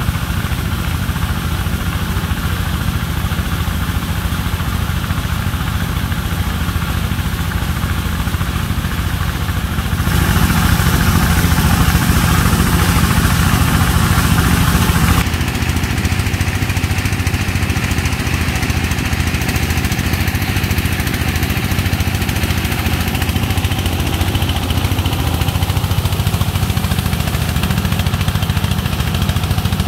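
A sand-suction pump's engine running steadily, with a jet of sand-laden water gushing out of the discharge hose. The rush of water gets louder for a few seconds about a third of the way in.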